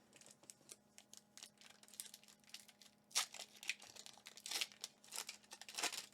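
Foil wrapper of a Pokémon Evolving Skies booster pack being crinkled and torn open by hand: a run of irregular crackles and rips, loudest about three seconds in and near the end.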